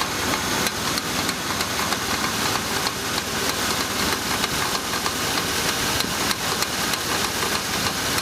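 GMC Jimmy engine idling with a rapid, uneven ticking knock from the valvetrain, which the owner hopes is noisy hydraulic lifters.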